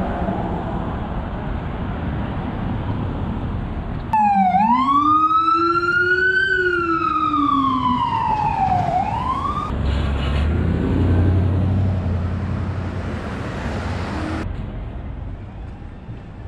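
City street traffic noise, then an emergency vehicle siren wailing: a loud tone that rises slowly, falls slowly and begins to rise again over about five seconds before cutting off suddenly. A low steady engine drone and traffic noise follow.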